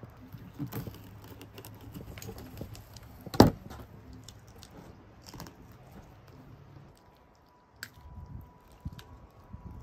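Fish being gutted by hand with a fillet knife on a plastic cooler lid: small wet cuts, scrapes and handling clicks, with one sharp knock about three and a half seconds in.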